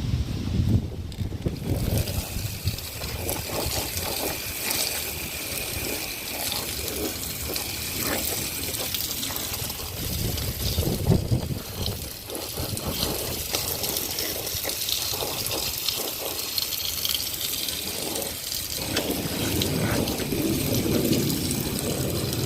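Running water splashing steadily.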